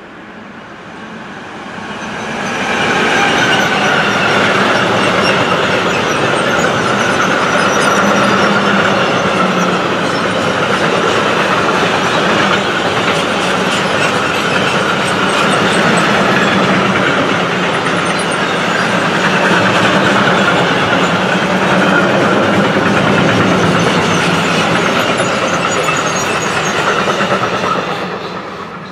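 A freight train passing close by: a DB class 185 electric locomotive followed by a long string of sliding-wall freight wagons, the wheels rolling loudly on the rails. The noise swells as the locomotive arrives over the first few seconds, holds steady while the wagons pass, and falls away near the end as the last wagon goes by.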